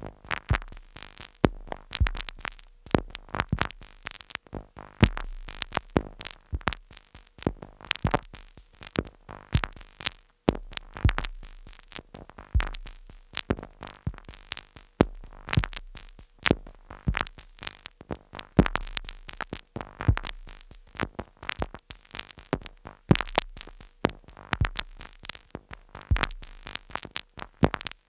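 Two Behringer Neutron analogue synthesizers sequenced by a Korg SQ-10, playing glitchy electronic noise: a dense, irregular stream of sharp clicks and noise hits over deep low thuds every couple of seconds.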